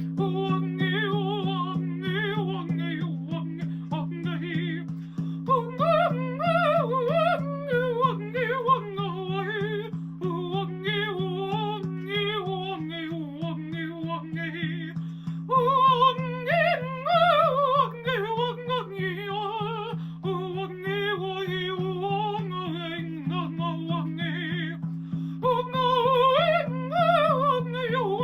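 A woman's wordless improvised singing, wavering and sliding in pitch with vibrato, in phrases of a few seconds each over a steady low drone.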